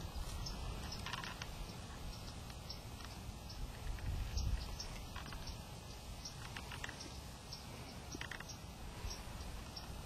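A chihuahua gnawing on a piece of wild hog meat: faint, scattered crunches and clicks over a steady low rumble, with birds chirping faintly.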